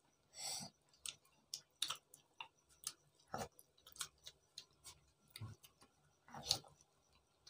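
People chewing mouthfuls of rice and egg curry eaten by hand, heard as a quiet run of irregular soft smacks and clicks, a few a second.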